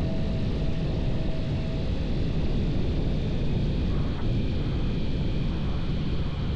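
Steady engine and propeller drone of a Kitfox light aircraft heard from inside the cockpit, on final approach to landing.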